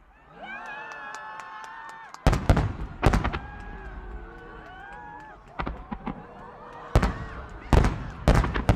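Aerial firework shells bursting with sharp booming bangs, irregularly spaced, coming closer together near the end.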